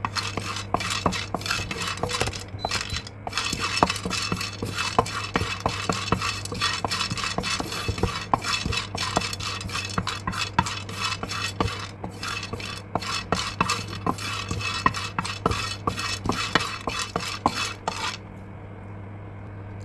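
Peanuts being stirred in a dry pan, a dense run of rattling clicks and scrapes from the nuts and the stirring utensil against the pan; the stirring stops about 18 seconds in, leaving a low steady hum.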